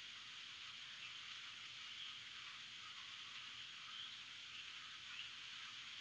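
Steady light rain, a soft even hiss, with a few faint high chirps from birds.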